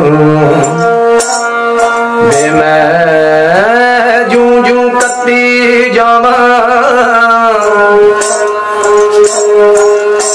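A bowed folk fiddle, its bow hung with small bells, playing a melody over steady drone notes, with a man singing along in a sliding, held line.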